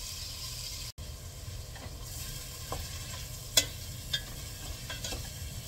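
Sliced mushrooms sizzling in melted butter in a pan while being stirred, with a utensil clicking against the pan a few times, the loudest about three and a half seconds in. The sound drops out for an instant about a second in.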